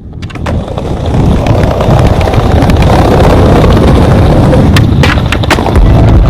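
Skateboard wheels rolling over rough pavement: a steady rumble that fades in over the first second, with scattered sharp clicks.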